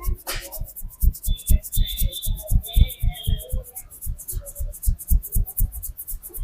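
A barber's hands tapping out a fast percussive head massage: an even run of dull slapping thumps, about four to five a second.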